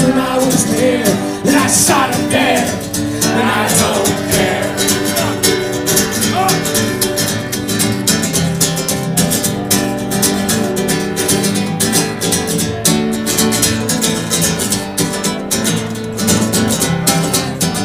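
Live acoustic guitar strummed steadily between verses of a folk-punk song, with the end of a sung chorus line over the first few seconds.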